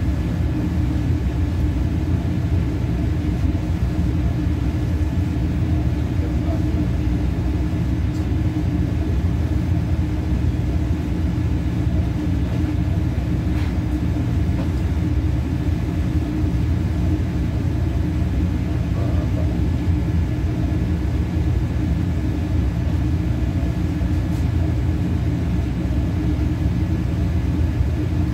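Steady low rumble and hum of running machinery, unchanging in level and pitch.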